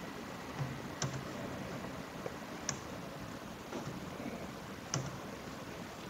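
Several sharp computer-mouse clicks a second or two apart over a faint steady hiss, from working a process-simulation flowsheet on screen.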